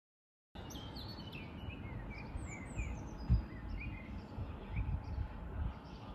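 Songbirds chirping over a low, uneven outdoor rumble. It starts abruptly after silence about half a second in, and there is a single low thump about three seconds in.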